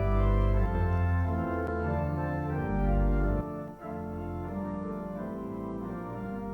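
Organ playing sustained full chords over a deep bass line, loud at first, then dropping to a softer, steady registration about three and a half seconds in.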